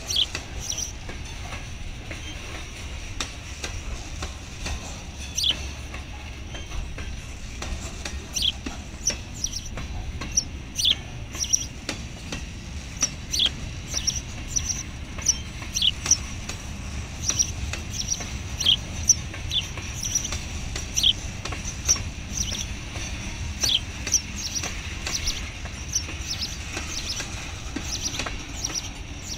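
Freight train cars rolling past: a steady low rumble with irregular clicks and many short, high-pitched squeals of steel wheels against the rail.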